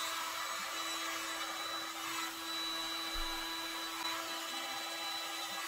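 Heat gun running steadily, a fan hum under a rushing blast of hot air, shrinking heat-shrink tubing over a soldered connector contact.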